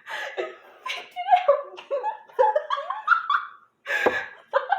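People laughing in a string of high-pitched bursts, with a sharp noise about four seconds in.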